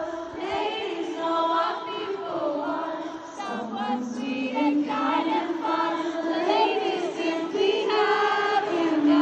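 Live pop concert music with a large crowd singing along, many voices together, picked up from within the audience.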